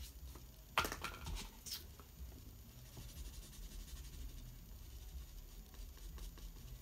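Two light taps about a second in, like a paintbrush being set down on a table, then faint brush strokes on watercolour paper over a low steady hum.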